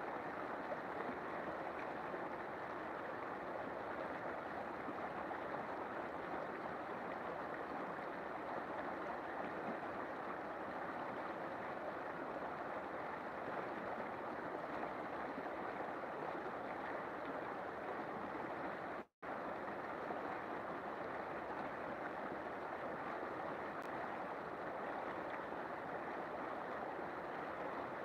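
River water flowing in a steady, even rush, broken once by a split-second gap of silence about two-thirds of the way through.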